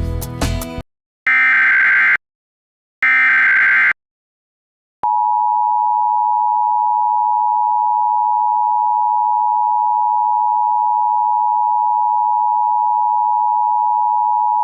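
Emergency Alert System tones: music cuts off under a second in, then two short bursts of the SAME digital header data, each about a second long, then about five seconds in the steady two-tone EAS attention signal (853 Hz and 960 Hz together) starts and holds.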